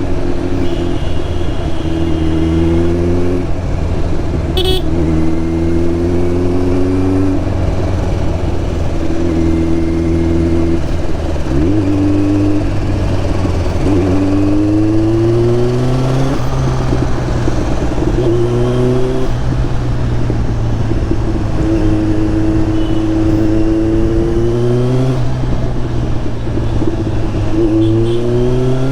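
Kawasaki Z900's inline-four engine through an SC Project slip-on exhaust, riding through the gears. The pitch climbs and falls back about eight times as the throttle opens and gears change, with steadier cruising stretches in between.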